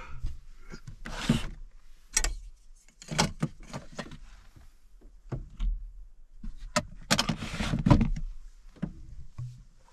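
Gear being shifted about inside a truck-bed topper, with a hand on a plastic storage drawer unit: irregular knocks and clicks and a few short sliding scrapes.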